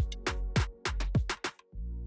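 Background electronic music with a drum-machine beat: steady kick and hi-hat hits over a sustained bass, with a brief break about three quarters of the way in.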